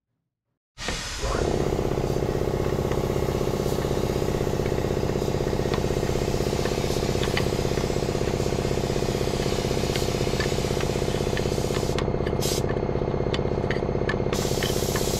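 An engine running steadily at an even speed, starting abruptly about a second in, with light clicks and taps of hand work on top.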